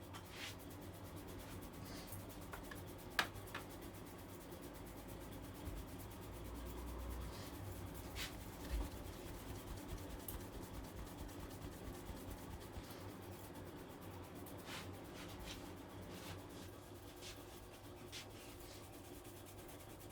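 Hands rubbing and kneading a head during a barber's head massage: soft, steady rubbing on the scalp, with a few sharp clicks, the loudest about three seconds in.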